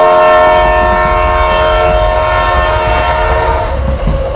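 A train horn sounding one long, steady, multi-tone blast that starts abruptly and fades out after about three and a half seconds, over the low rumble of a toy train running on plastic track.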